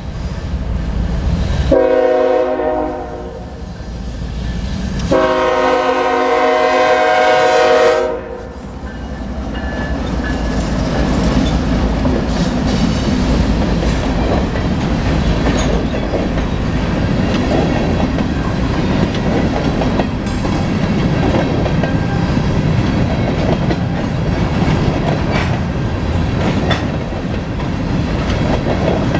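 Diesel locomotive's multi-chime air horn sounding a short blast about two seconds in and a long blast of about three seconds: the close of a grade-crossing horn signal. The locomotive and covered grain hopper cars then roll past close by, wheels clacking over the rail joints.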